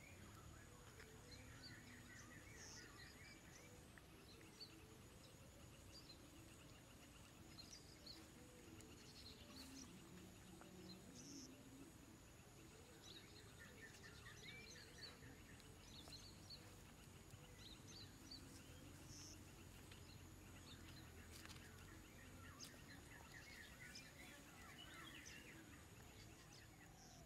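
Faint outdoor ambience: birds chirping in short, quick trills again and again, over a steady thin high whine.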